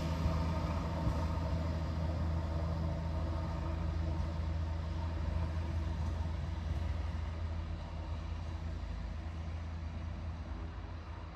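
Diesel railcar's engine running with a steady low drone as the railcar pulls away, slowly fading as it draws off into the distance.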